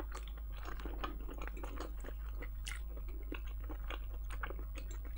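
A person chewing a mouthful of casserole close to the microphone: irregular soft, moist smacking clicks, over a faint steady low hum.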